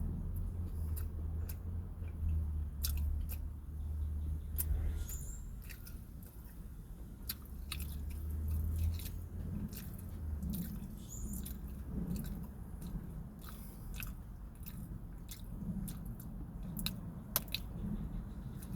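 Close-miked chewing of a fast-food sandwich, with frequent wet mouth clicks and smacks, over a low steady hum that fades about halfway through.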